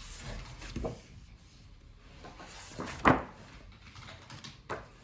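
Pages of a large hardcover art book being turned by hand: paper rustling, with a sharp page flap about three seconds in and a smaller one near the end.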